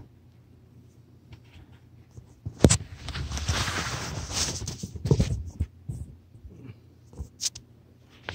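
Phone rubbing and bumping against bedding and carpet: a knock, a loud fabric rustle lasting about two and a half seconds, more knocks, then a few faint scrapes and clicks.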